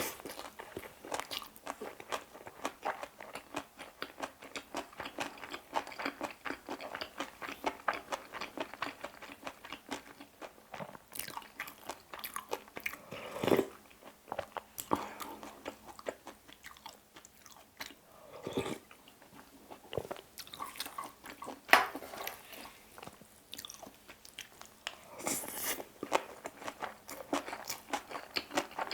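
Close-up chewing and crunching of a mouthful of bibimbap with crisp namul such as radish salad and bean sprouts: dense wet crackles and crunches. There are a few louder bites along the way and one sharp click a little past the middle.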